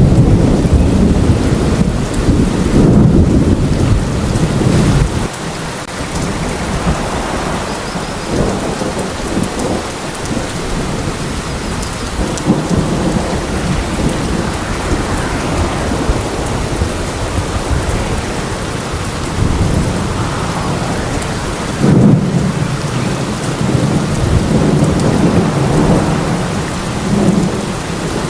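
Steady heavy rain in a thunderstorm. Thunder rumbles at the start and cuts off suddenly about five seconds in; a sharp thunderclap about 22 seconds in is followed by several seconds of rumbling.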